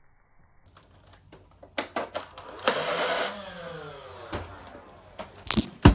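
Battery-driven toy foam-dart blaster's motor whirring up after a couple of clicks, then winding down in falling pitch. Sharp clicks and knocks near the end.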